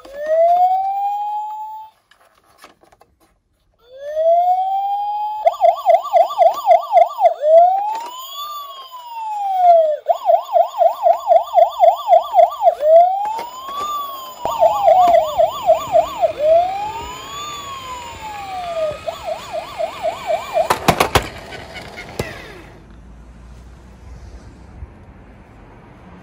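Toy police car's built-in electronic siren sounding. It alternates slow rising-and-falling wails with a fast warbling yelp, after a brief pause near the start. A few sharp clicks come just before it cuts off near the end, leaving a low hiss.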